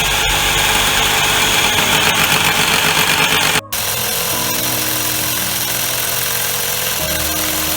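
A power tool running loudly and steadily, in two stretches broken by an abrupt cut about three and a half seconds in.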